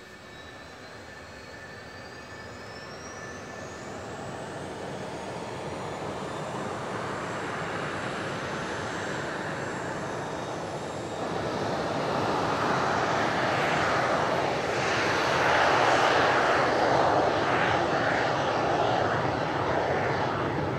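J79 turbojet engines of F-4EJ Kai Phantom II fighters running on the ground. A thin high whine rises in pitch over the first few seconds, while the jet noise grows steadily louder, with a step up about eleven seconds in.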